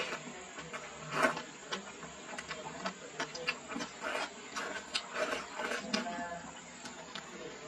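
A person slurping up luosifen rice noodles and chewing, with wet mouth smacks and clicks in irregular bursts.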